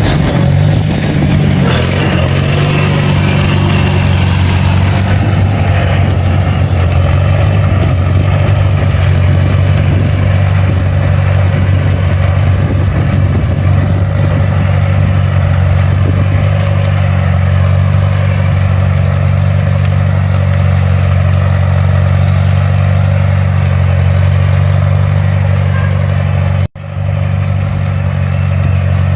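International 140 tractor's engine running steadily under throttle, with a brief break about 27 seconds in.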